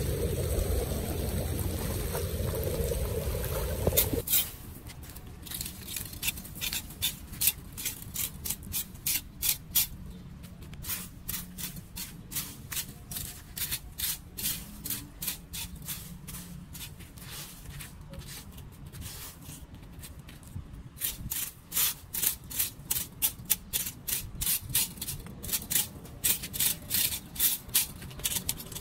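Floodwater rushing for the first four seconds, cutting off suddenly. Then a metal hand rake scraping dry leaves and debris across a storm-drain grate and concrete, in quick, repeated scratchy strokes.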